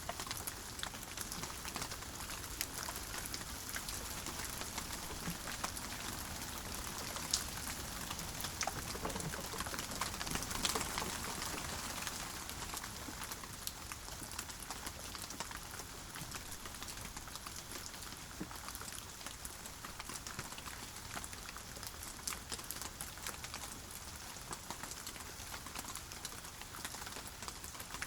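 Steady rain with many individual drops ticking sharply on a surface, swelling a little louder about a third of the way through.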